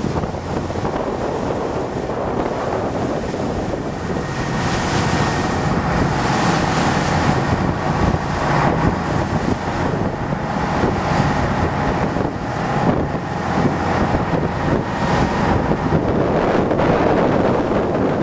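Wind buffeting the microphone aboard a motorboat running at speed, over the steady drone of its engine and the rush of water from its wake.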